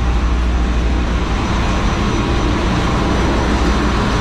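Steady, loud machinery din of a ship's engine room: diesel engines running, with a deep, constant drone under an even wash of mechanical noise.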